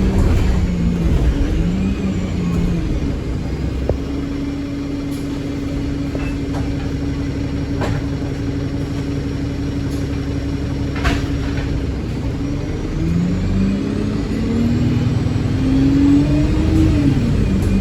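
Bus engine working hard under heavy throttle. Its pitch climbs at first, holds steady for several seconds, then climbs again and drops back sharply near the end.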